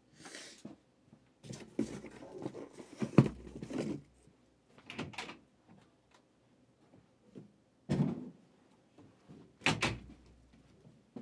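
A trading-card box and its packaging being handled and opened on a table: rustling and scraping of cardboard and wrap, with a few dull thuds, the loudest about three seconds in and others near eight and ten seconds.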